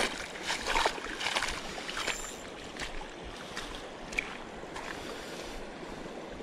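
Steady rushing of the shallow river with wind noise on the microphone, and a few light clicks and knocks from stones and the landed fish flopping on the gravel.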